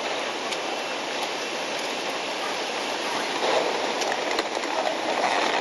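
Tsunami floodwater rushing, a steady even noise that grows a little stronger about halfway through.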